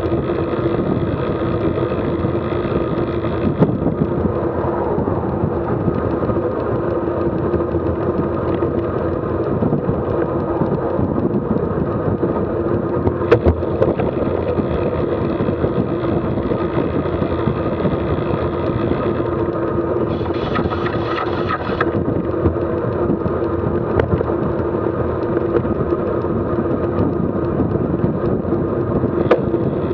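Steady wind rush buffeting a bicycle-mounted camera's microphone, mixed with tyre noise on pavement at road-bike cruising speed. A single sharp knock comes about 13 seconds in.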